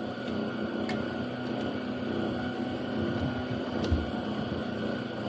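Steady hum of a running cooling fan, with a couple of light clicks of plastic interior trim being handled, about a second in and again near four seconds.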